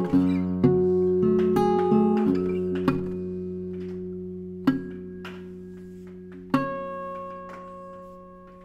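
Steel-string acoustic guitar in the Johann Stauffer style, with a spruce top and rosewood back and sides, fingerpicked solo. A quick run of plucked notes comes first, then a single pluck about halfway through and another near the end, each left to ring out and fade.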